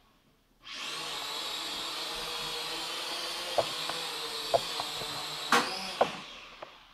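Small toy quadcopter's motors and propellers spinning up after a moment of silence into a steady high whine, with several knocks as it bumps against the wooden floor, the loudest about five and a half seconds in. The whine fades near the end.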